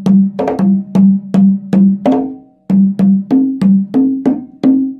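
A pair of conga drums played by hand in a short rhythmic phrase of about three strokes a second, moving between the lower drum and the higher one. There is a brief break halfway through, and the last open tone is left ringing near the end.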